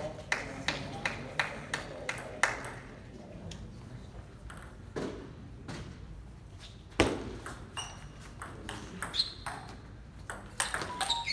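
Table tennis ball clicking on paddle and table. About three bounces a second in the first couple of seconds, then a loud hit about seven seconds in starts a quick rally of sharp clicks, with a few short squeaks near the end.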